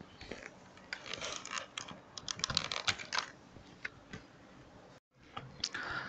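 Typing on a computer keyboard: a quick run of key clicks about a second in, then a shorter burst near the end.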